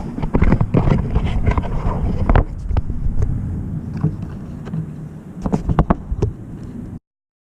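Handling noises: a run of knocks and clicks over a low rumble, bunched near the start and again late on, then the sound cuts off abruptly.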